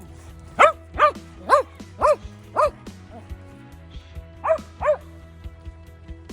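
A dog barking: five sharp barks about two a second, a pause, then two more, over background music.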